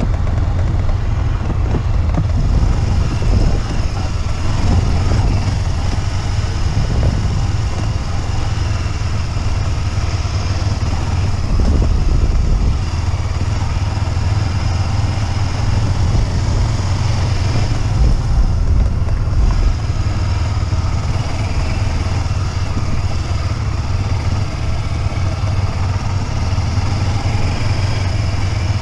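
Motorcycle engine running under way, its note rising and falling with the throttle.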